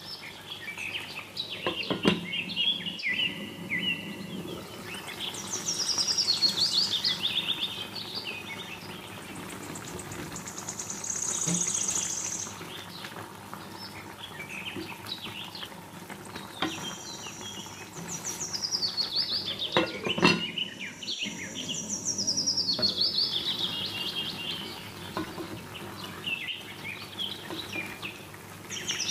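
Birds singing in the background: repeated high, falling trills, one after another. Twice, about two seconds in and again around twenty seconds, a sharp knock of a wooden spatula against the pan stands out.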